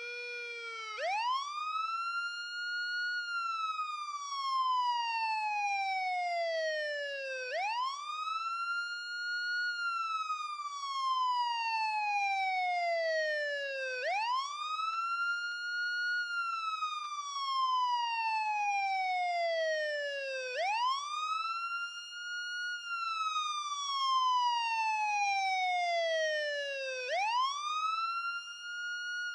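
Ambulance siren on a slow wail. Each cycle rises quickly in pitch, then falls slowly over several seconds, repeating about every six and a half seconds.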